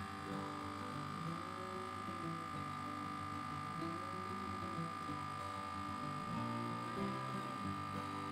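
Caso VC11 vacuum sealer's pump running steadily with a constant whine as it draws the air out of the bag around the meat.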